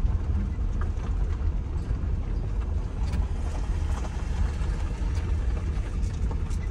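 Steady low rumble of a car being driven slowly, its engine and tyre noise running on without change.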